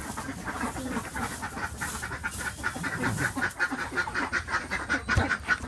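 A flock of laying ducks quacking, many short calls following one another in quick succession.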